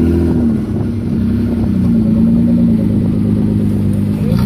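V6-swapped Suzuki Samurai's engine working off-road under load, its note rising and falling with the throttle and revving up near the end.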